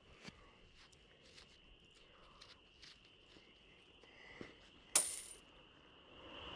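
Faint rustling and small clicks of gloved hands picking a coin out of loose dirt, over a steady high-pitched background chirring. About five seconds in comes a brief loud, bright noise.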